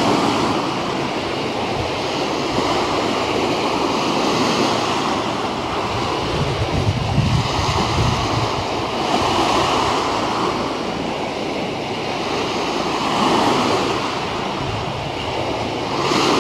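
Harbour waves washing below a railing: a steady rushing wash that swells and eases every few seconds. Wind buffets the camera microphone with a low rumble around the middle.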